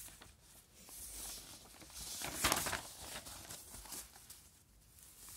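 Faint rustling and scratching of paper being handled, with small clicks, loudest about two and a half seconds in.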